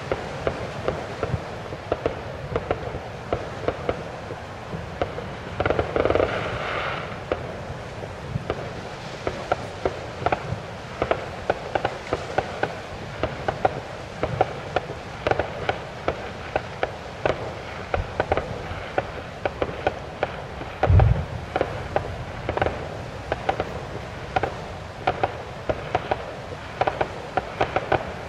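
Fireworks display: aerial shells bursting in a quick, irregular run of sharp bangs and crackles. There is one louder deep boom about two-thirds of the way through.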